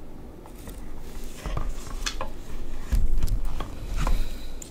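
A hardcover book being closed and set on a wooden book stand: a string of light knocks and clicks, some with a dull thud.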